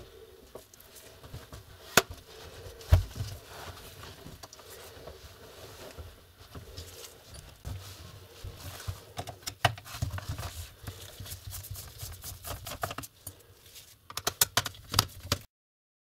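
Handling noise of a laptop being turned over and worked on by gloved hands: two sharp knocks about two and three seconds in, then a run of small clicks and taps as a screwdriver is set to the bottom-cover screws. The sound cuts off suddenly near the end.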